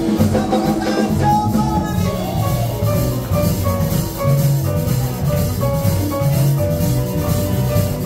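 Small jazz band playing live: piano, double bass and drum kit, with a melody line of short held notes stepping up and down over a steady bass and drums.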